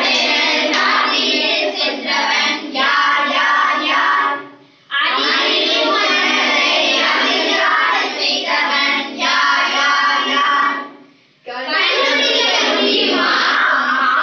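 A group of children singing a Tamil action song together in unison, in three sung phrases separated by brief pauses about five and eleven seconds in.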